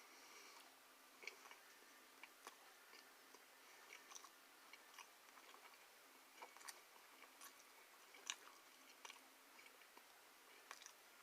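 Faint close-up chewing of a mouthful of pizza, with soft mouth clicks coming irregularly about once a second.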